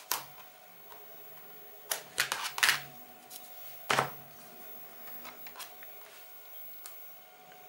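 Tabletop handling of double-sided tape being pulled from its roll and pressed onto a hardboard frame backing: a cluster of scratchy clicks about two seconds in, a sharp knock about four seconds in, then a few light ticks.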